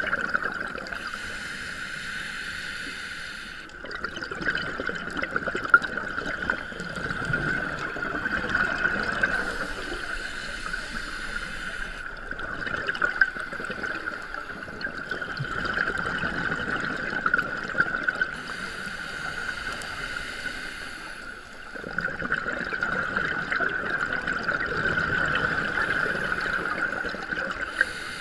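Scuba regulator breathing heard underwater. A hissing inhale of about three seconds alternates with a longer gurgle of exhaled bubbles, one breath about every nine seconds, over a steady high tone.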